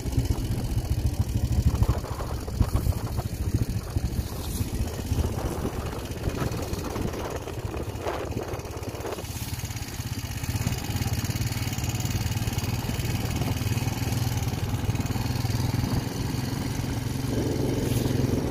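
Quad bike engine running steadily as the bike is driven along.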